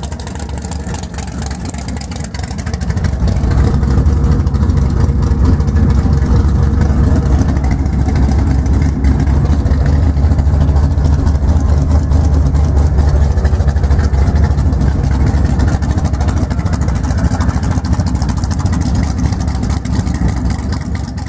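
Plymouth Satellite's 440 big-block V8 running steadily with a deep rumble. It gets louder about three seconds in, then holds steady.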